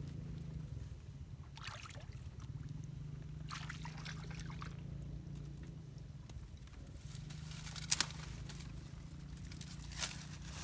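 Shallow pond water sloshing and trickling as a person wades and works her hands in it, with scattered rustles from leaves and branches. A sharp crack about eight seconds in is the loudest sound, and a smaller one follows near the end, over a low steady hum.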